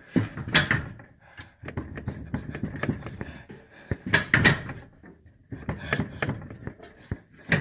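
Irregular clunks and knocks of metal parts being handled and fitted while a hand works the steering shaft coupler under a car. The loudest clusters come about half a second in and around four seconds.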